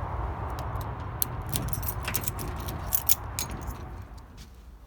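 Scattered light metallic clinks and rattles over a low steady rumble, which fades away near the end.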